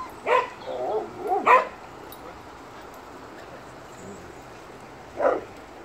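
A dog barking and yipping: a quick run of short barks and yips in the first two seconds, then one more bark about five seconds in.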